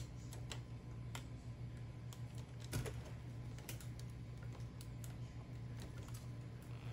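Faint scattered clicks and taps of a thin metal rod and wires being handled and pushed into a plastic robot leg, over a low steady hum.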